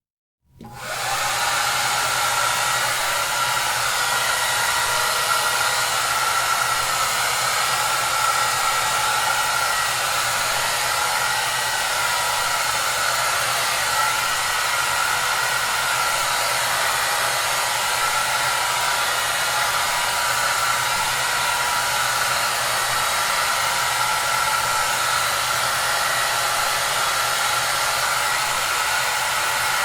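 Hair dryer running steadily, an even rushing hiss with a steady motor whine over a low hum. It comes in quickly from silence about half a second in, then holds unchanged.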